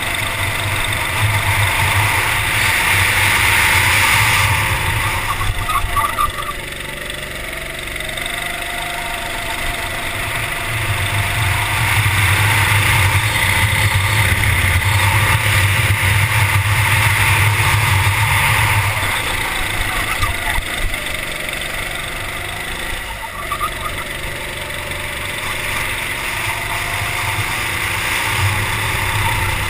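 Go-kart engine heard from the kart's onboard camera, climbing in revs along the straights and dropping off into the corners, with wind rushing over the microphone. It is loudest on a long pull through the middle, eases off around two turns, and picks up again near the end.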